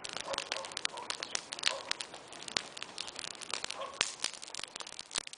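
Wood fire in a backyard fire pit crackling, a dense, irregular scatter of sharp pops and snaps.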